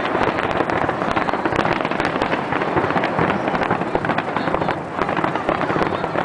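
A dense barrage of fireworks bursting and crackling, many overlapping bangs and pops with no break.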